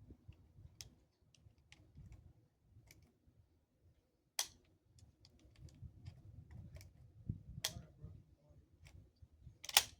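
A scattering of light clicks and a few sharper clacks, the loudest near the end.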